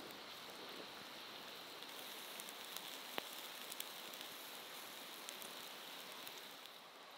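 Meat skewers sizzling on a wire grill over campfire coals: a faint, steady hiss with scattered sharp crackles from the fire, one louder crack about three seconds in.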